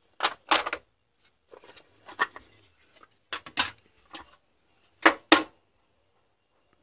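Hard plastic clacks and handling noise from a 14.4V cordless drill battery pack being opened and its lithium-ion cells lifted out: a few sharp knocks, mostly in quick pairs, with a softer rustle around two seconds in and the loudest pair about five seconds in.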